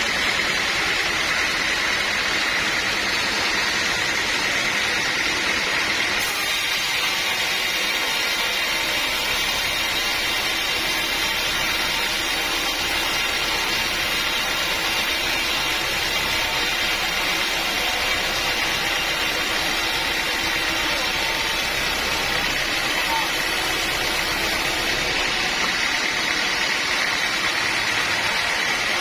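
Sawmill saw running steadily, a constant machine noise that turns hissier from about six seconds in until near the end.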